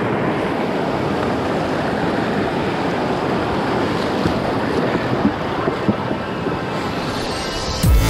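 Steady rushing wind noise on the microphone while a mountain bike is ridden, with a few light knocks in the second half. Music comes in near the end.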